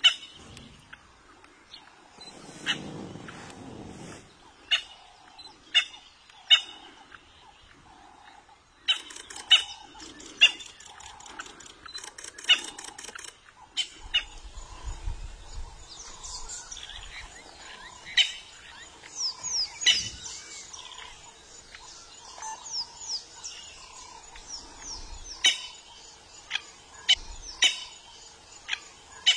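Wild birds chirping and calling: sharp, short chirps repeated throughout, joined in the second half by quick falling high whistles and a softer call repeating about once a second.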